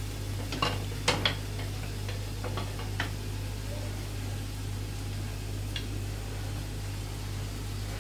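Sliced peppers sizzling steadily in olive oil in a frying pan, with a few sharp knocks and clatters of kitchen utensils about one to three seconds in.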